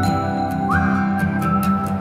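Instrumental background music: a steady accompaniment with a high melody line that slides up into a held note just past the middle, over light regular percussion.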